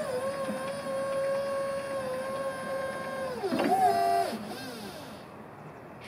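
Hydraulic pump motor of a Still R60-25 electric forklift whining steadily as the triplex mast lifts. About three seconds in the whine falls in pitch and wavers, then stops a little over four seconds in as the lift ends.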